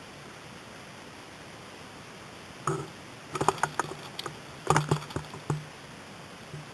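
Sharp clicks and knocks from an airsoft gun carrying a mounted camera, over a steady hiss. The clicks start about two and a half seconds in and come in two irregular clusters, with a low hum under them.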